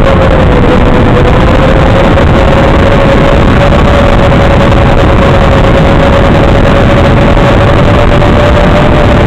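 Loud, steady static hiss from an analog FPV video link's audio channel, with a steady mid-pitched tone running through it.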